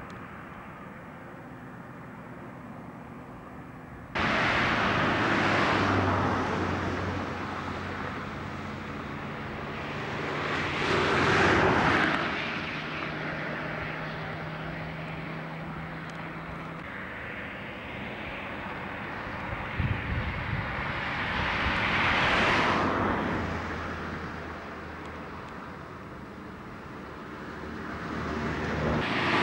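Outdoor traffic noise picked up by a camcorder microphone: vehicles passing one after another, each a rush that swells and fades over a few seconds, about four in all, over a low steady engine hum. The noise steps up abruptly about four seconds in.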